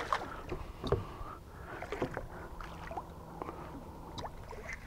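Irregular small water splashes and light clicks around a skiff's hull as a hooked redfish is fought and reeled toward the boat.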